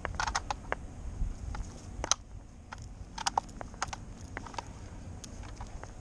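Scattered light clicks and taps from walking a dog on a lead, over a low steady rumble. Clusters of ticks come about a quarter-second in, around two seconds in and a little past three seconds in.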